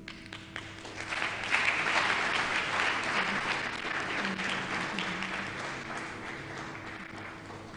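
Audience applauding in an auditorium. The clapping swells about a second in and then slowly dies away.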